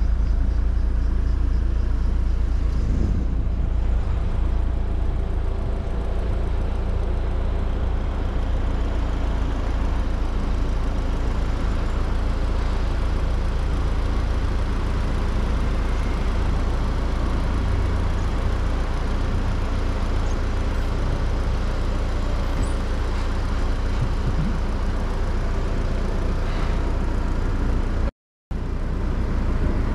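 BMW Z4 being driven: steady engine and road rumble, heaviest in the low end, with the sound cutting out briefly about two seconds before the end.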